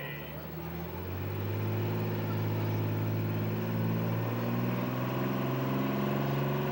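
Pulling semi truck's big diesel engine running under throttle at the start line, getting louder over the first two seconds and then holding a steady note.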